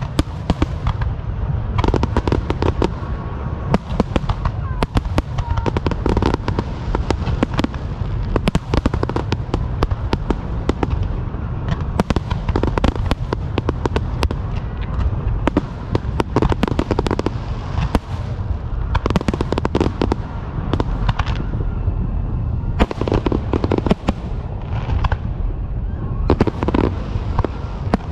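Fireworks going off continuously: many overlapping bangs and crackling pops in rapid succession over a steady low rumble, with no pause.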